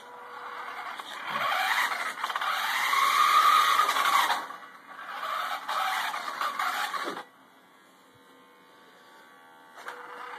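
Toy RC car's electric drive motor and gears whining as the robot drives at near full speed, the pitch rising and then falling as it speeds up and slows. The code slows it as its ultrasonic sensors detect obstacles. The whine cuts off suddenly about seven seconds in, and a shorter burst comes near the end.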